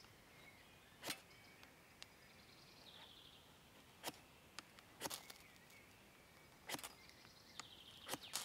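Quiet forest ambience with faint bird calls, broken by five sharp clicks spread across the few seconds.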